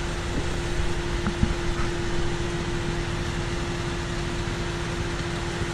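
Steady mechanical hum with one constant tone, from an idling vehicle or station equipment. A couple of faint knocks come about a second and a half in.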